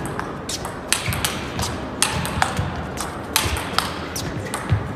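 Table tennis rally: the celluloid ball clicking sharply off the paddles and the table in a quick, irregular string of hits, several a second.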